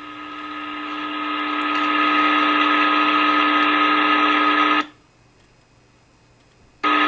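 A long, steady horn-like tone of one held pitch with many overtones. It swells up over about two seconds, cuts off sharply about five seconds in, and after a short silence starts again near the end.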